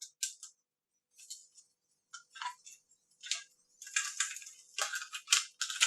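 Small clicks and scrapes of hands and a small screwdriver working on a personal stereo's plastic case during reassembly: a run of short dry strokes, sparse at first and coming faster in the second half.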